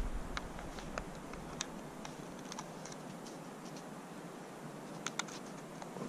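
Scattered light clicks and taps from handling a drone's remote controller and the phone clipped to it while the app is being started.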